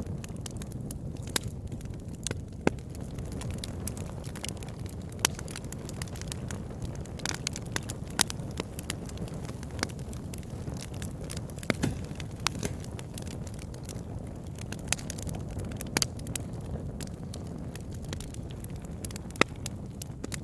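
Campfire burning with a steady low rush of flames and irregular crackles and sharp pops of the wood.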